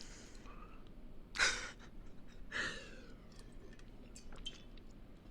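A person's breathy exhales close to the microphone, two of them about a second apart, like sighs.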